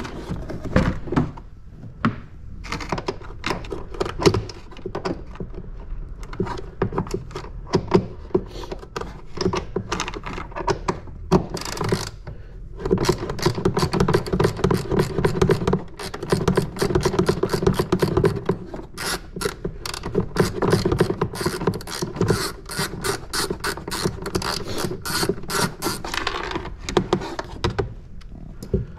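Hand socket ratchet on an extension clicking in rapid runs with short pauses, as it is swung back and forth to undo nuts.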